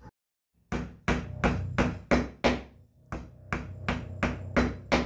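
Small hammer tapping wooden frame pieces together: about a dozen sharp knocks, roughly three a second, in two runs of six with a short pause about halfway.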